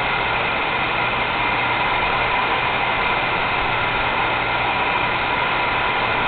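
A machine running steadily: an even hum with several held tones over a noise bed, with no change in level or pitch.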